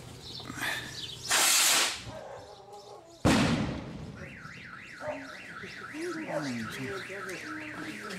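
A firework set off: a short hissing whoosh, then about two seconds later a single sharp bang. A car alarm then starts warbling, its tone sweeping up and down about four times a second.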